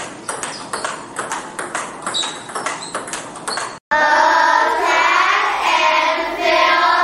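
Table tennis balls ticking rapidly off bats and tables in a busy practice hall, with a few short high squeaks. About four seconds in, after a brief gap, a group of children's voices sing in unison.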